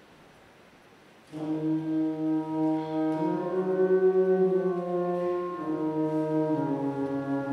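A hush, then about a second in a wind ensemble enters together, playing slow, sustained chords whose notes shift gently.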